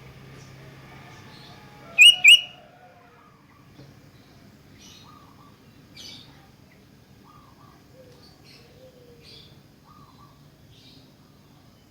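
Sooty-headed bulbul (kutilang) calling: two loud, sharp, high notes about two seconds in, then softer scattered chirps and short notes.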